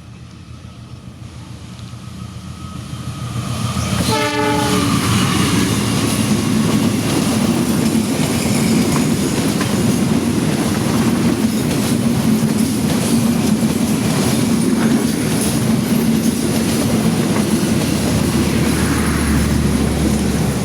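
Passenger train approaching and passing close by, growing louder. It gives a short horn blast about four seconds in, then its carriages run by with wheels clattering over the rail joints.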